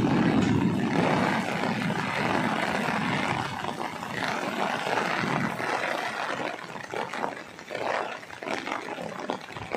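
Heavy rain pouring down, with wind buffeting the microphone in a low rumble that is strongest in the first second or so and then gives way to the steady hiss of the rain.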